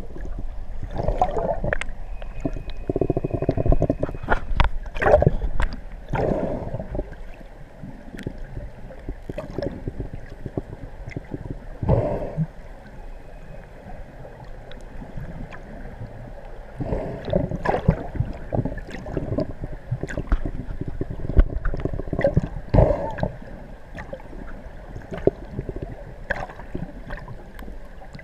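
Underwater water noise heard through a camera housing: muffled gurgling and rushing water with scattered bubble clicks, surging irregularly every few seconds.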